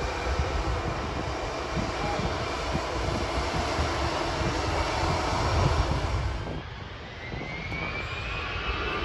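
Jet engines of a Lufthansa Airbus A320-family airliner taxiing, a steady rumble and hiss. After a cut, about two-thirds of the way in, the sound is quieter and a thin rising whine comes in near the end.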